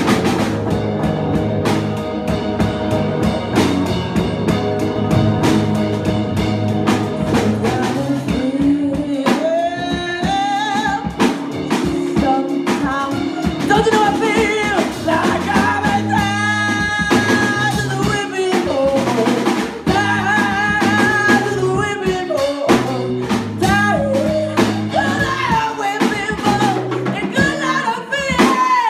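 Live blues-rock band with two electric guitars and a drum kit playing loudly. About nine seconds in, a woman's lead vocal comes in over the band and carries on through the rest.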